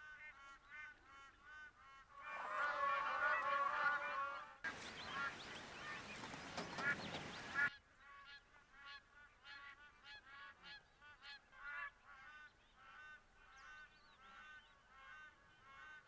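A flock of birds honking in a rapid series of repeated calls, about three a second, louder for a couple of seconds near the start. A rush of wingbeats and splashing follows for about three seconds. The honking carries on faintly afterward.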